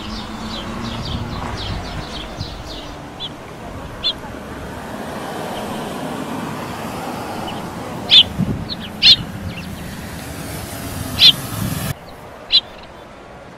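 Birds chirping: a run of small chirps early on, then a few loud, sharp, high calls about a second apart near the end, over the steady rush of a car passing on the road.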